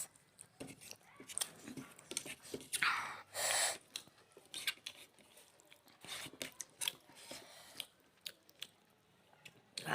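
Close-miked chewing and wet mouth sounds of people eating rice and curry, with many short scattered clicks and smacks. A louder rush of noise comes a little under three seconds in and lasts about a second.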